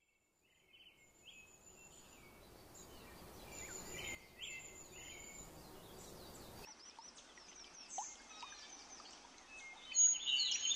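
Wild birds chirping and singing, many short high calls over faint outdoor background noise. The background changes abruptly twice, and the chirping grows louder near the end.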